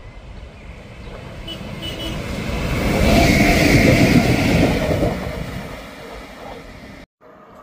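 A Siemens ES64U4-G (Taurus, class 183) electric locomotive, with a second locomotive coupled behind, passing at speed. The rushing wheel and rail noise builds to a loud peak about three to four seconds in, fades, and then cuts off suddenly near the end.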